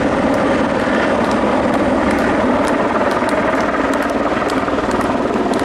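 Steady drone of a motor engine, with scattered faint clicks.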